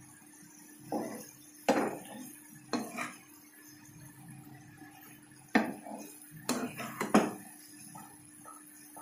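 A flat spatula scraping and knocking against a frying pan as a thick masala is stirred, in irregular strokes about a second or so apart, several of them sharp clacks. A low steady hum runs underneath.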